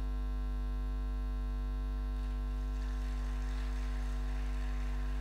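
Steady electrical mains hum, a low 50 Hz buzz with its overtones, running at an even level. A faint hiss-like noise joins it from about two seconds in.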